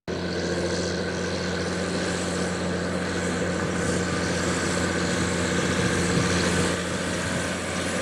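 Tractor engine running steadily under load as it pulls a McHale V660 round baler gathering windrowed hay, with the baler's pickup and chamber working behind it. The sound starts abruptly and keeps an even level throughout.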